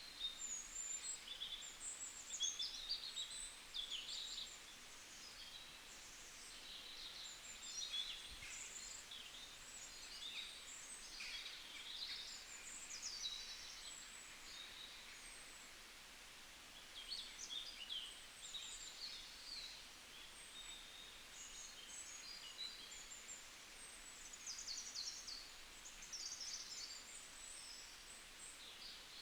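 Several small birds singing and calling at once: a busy run of quick, high chirps and trills that thins out in short lulls, over a faint steady outdoor hiss.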